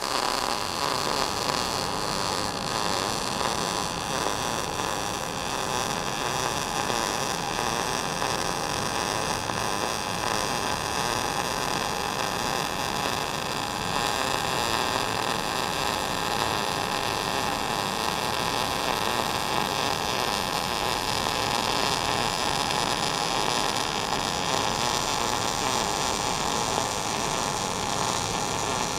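MIG welding arc running one long, continuous bead, a steady sizzle with no breaks.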